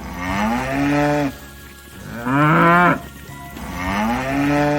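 Cow mooing: three long moos in a row, each about a second long.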